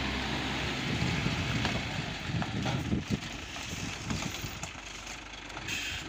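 Engine of a heavily loaded ten-wheeler flatbed truck running: a steady low note that gives way, about a second in, to irregular low thumps and rumbles.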